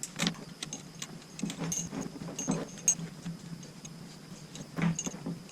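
Metal climbing hardware on a tree-climbing saddle clinking and clicking irregularly as the accessories are unclipped and taken off, with a few light knocks.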